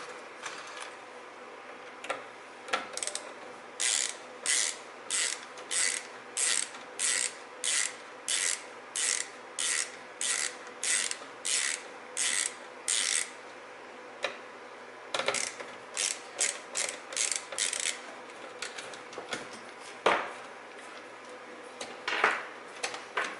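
Ratcheting hand tool being worked back and forth, its pawl clicking in short rasping strokes about two a second, then a quicker run of strokes.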